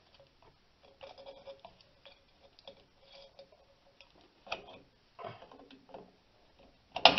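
Small metallic clicks and scrapes of pliers working drum-brake springs and hardware on a steel backing plate, with a louder cluster of metal clanks near the end.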